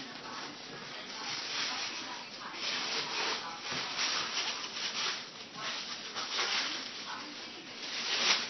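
Gift wrapping paper rustling and crinkling in irregular bursts as a present is unwrapped by hand.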